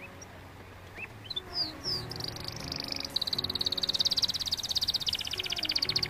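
Canary singing: a few separate chirps, then from about two seconds in a run of fast, even trills, changing to a lower trill near the end. Soft background music plays underneath.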